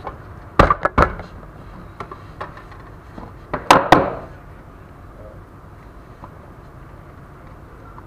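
Sharp knocks and clacks of hard tools being handled. The loudest come in two close pairs, about half a second in and again near four seconds in, with a few lighter taps between, over a steady background noise.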